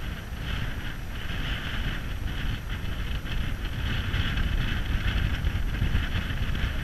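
Wind buffeting the microphone, with the rushing wash of choppy water around a small boat that swells and fades every second or so.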